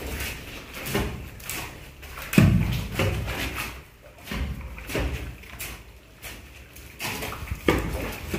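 A hoe chopping and scraping through a damp, semi-dry sand-and-cement screed mix on a concrete floor, about one stroke every two-thirds of a second. The heaviest thud comes about two and a half seconds in.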